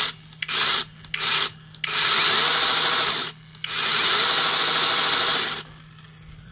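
Beihong brushless 6-inch cordless mini chainsaw run unloaded in trigger bursts: a few short blips, then two longer runs, each winding up smoothly in pitch rather than snapping on, the soft start of its brushless motor. It cuts off sharply near the end.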